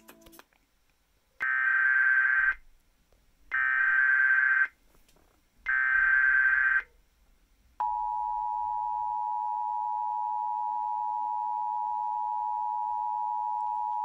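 Emergency Alert System header: three roughly one-second bursts of warbling SAME digital data tones, then about eight seconds in a long, steady attention tone. Together they announce the start of an emergency alert, here a National Weather Service severe thunderstorm warning.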